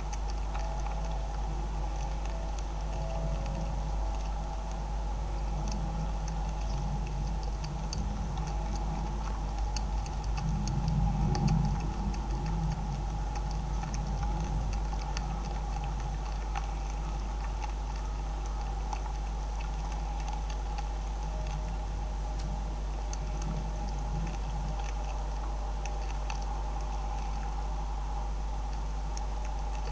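Beavers chewing and crunching scattered grain feed: many small irregular clicks over a steady low electrical hum, with a brief louder low rumble about a third of the way in.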